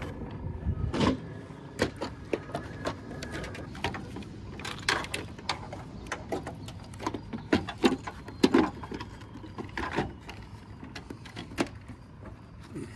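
Irregular clicks and knocks of a plastic aftermarket tail light housing being handled and fitted against a car's trunk lid.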